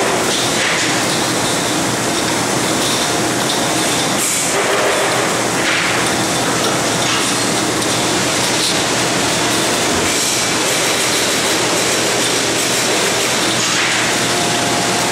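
Steady, loud din of workshop machinery running, even throughout, with a few brief higher hisses over it.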